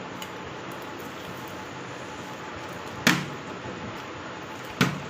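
Plastic water bottle with a little water in it landing on a hard floor twice, about a second and a half apart, each a sharp knock, over a steady background hiss.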